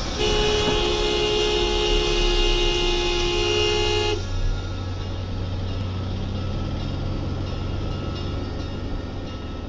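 A car horn held for about four seconds, two close tones sounding together, then cut off. A steady engine and road drone heard from inside the car runs on after it.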